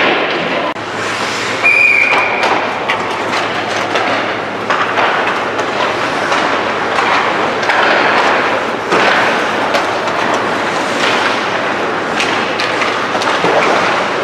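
Ice hockey practice on the rink: skate blades scraping and carving the ice in a steady noisy wash, with frequent sharp clacks of sticks and pucks. A brief high squeal about two seconds in.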